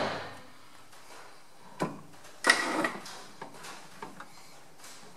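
Steel tooling being handled on a metal lathe while it is stopped: a sharp metal clank at the start, a single knock a little under two seconds in, and a longer clattering scrape about two and a half seconds in, as a drill chuck is set up in the tailstock.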